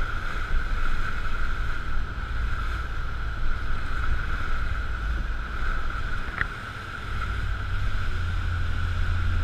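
Rigid inflatable speedboat running fast on the river: a steady engine drone with water rushing and splashing along the hull and wind buffeting the microphone. A short click about six seconds in, and the low rumble grows louder near the end as the boat passes under a bridge.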